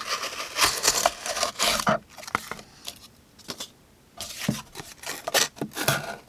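WE Knife Mote's thin S35VN steel blade slicing through cardboard in a run of short rasping strokes. The strokes pause for about two seconds in the middle, then resume.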